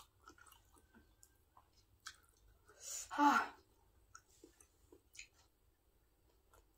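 Close-up eating sounds: faint chewing and small wet clicks of mouth and chopsticks, with one sigh about three seconds in, a breathy rush that ends in a short voiced note falling in pitch.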